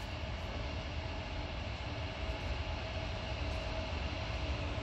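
A train approaching in the distance: a steady low rumble with a faint steady hum.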